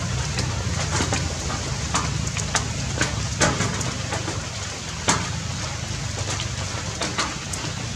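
Rain falling, with many sharp single drop hits at irregular times over a steady low rumble.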